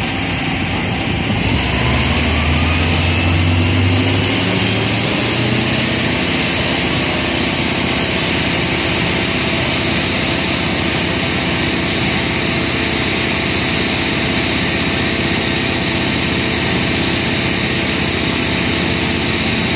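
Airport crash fire rescue truck's engine revving up from idle about a second and a half in, then holding high revs to drive its fire pump as the boom nozzle shoots a jet of water. The steady engine and pump noise mixes with the hiss of the water jet.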